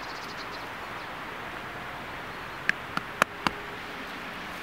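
Steady outdoor hiss of wind, broken by four sharp clicks in quick succession a little past the middle.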